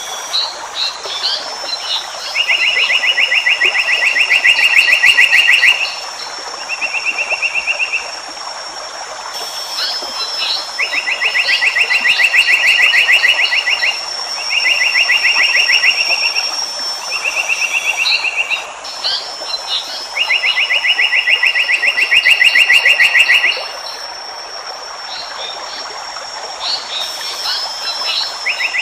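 Looped wildlife recording of animal calls: fast, even pulsed trills in bursts of one to three seconds, over a steady high whine and scattered short chirps. The whole pattern repeats about every nine seconds.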